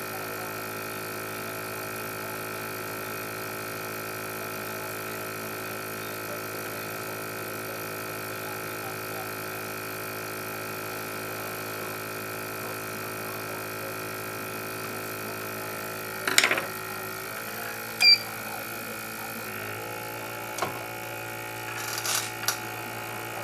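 Steady hum of a BGA rework station's heaters and fans while the laptop GPU is being heated. In the second half, metal tweezers scrape and click against the chip, with one sharp tick, as the softened chip is pried free of the board.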